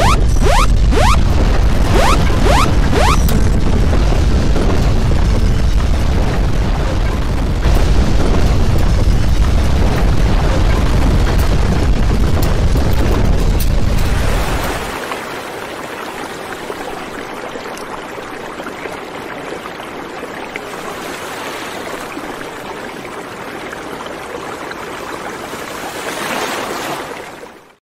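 Heavy, loud rumbling of earthquake shaking picked up by a camera microphone during the M 6.7 Northridge earthquake, with sharp crashes in the first few seconds. About fourteen seconds in, the deep rumble stops and a quieter steady noise continues, then cuts off just before the end.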